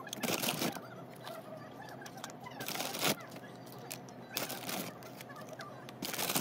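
Plastic and paper stationery packaging (blister pack and sticker sheets) rustling and crinkling as it is handled and set down, in four louder bursts with smaller rustles between.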